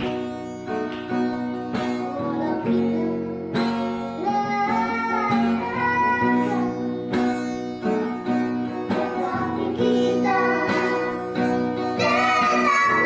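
Boys singing a song in Indonesian together over a plucked acoustic guitar accompaniment. The guitar is steady throughout, and the singing comes up clearly from about four seconds in.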